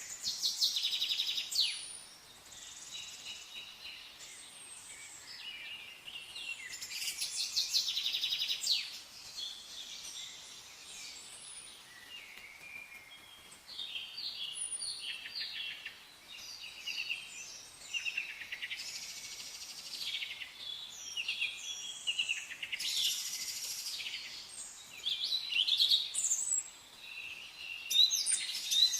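Several songbirds singing and chirping together, overlapping phrases of high chirps and rapid trills that come and go throughout, over a faint background hiss.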